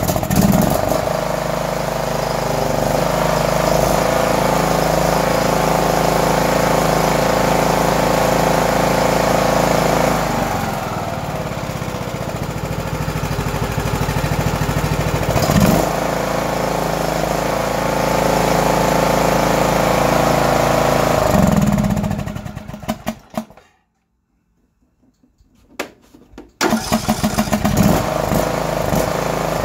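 Small John Deere engine, freshly rebuilt with a new cam gear and tappets, running on choke with its speed surging up and down; it dies about three-quarters of the way through and catches again about three seconds later. The uneven running and stalling are a hiccup in fuel delivery, which the owner puts down to old, stale gas or something in the fuel system.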